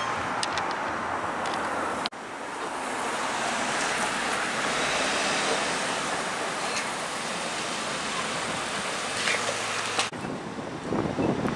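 Steady rush of street traffic with a Flexity Outlook streetcar and passing cars, and wind on the microphone. The sound breaks off abruptly about two seconds in and again near the end.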